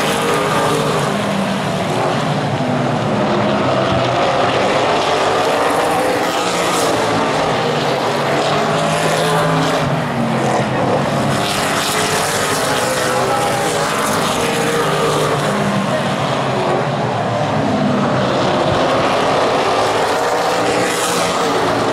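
Super late model stock cars racing on a short oval, several V8 engines running hard together and rising and falling in pitch as they go around. Louder sweeps come about every five seconds as cars pass close.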